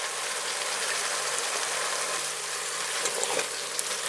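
Chopped vegetables sizzling steadily in a hot multicooker pot, with a few light clicks near the end as a spoon goes in to stir them.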